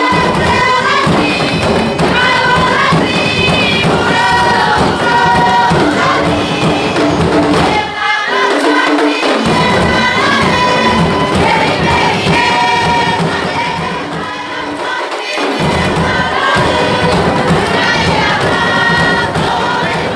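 Women's chorus of the Ua Huka delegation chanting in Marquesan style, with high warbling phrases imitating the chirping of the pihiti, the Ua Huka blue parakeet. A low beat runs underneath and drops out briefly about eight seconds in and again around fifteen seconds.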